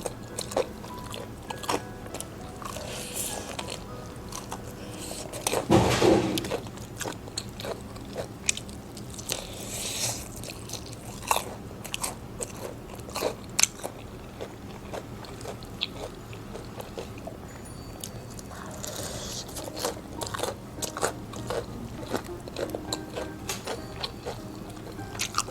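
Close-miked crunching and chewing of crispy fried chicken: irregular crisp bites throughout, with a louder crunch about six seconds in, over background music.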